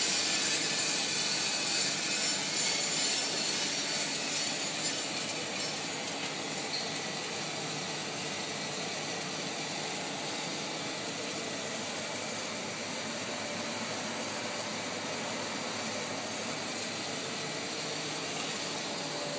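Drum coffee roaster discharging roasted beans into its cooling tray: a steady rushing rattle of beans over the running roaster, cooling fan and stirring arms, easing down over the first six seconds or so to a steady mechanical hum as the flow of beans dwindles.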